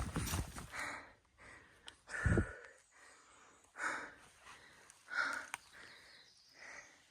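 A hiker breathing hard while climbing, with a breath about every second and a half. About two seconds in, one breath comes with a low thump on the microphone.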